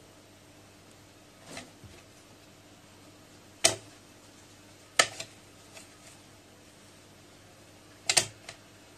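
Scattered sharp taps and knocks against a plywood cat bed as a cat paws at a dangling toy and the wood around it. They come irregularly, with a quick double knock near the end.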